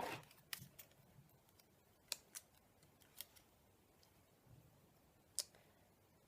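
Near silence broken by a few faint, short clicks and taps of small plastic parts being handled.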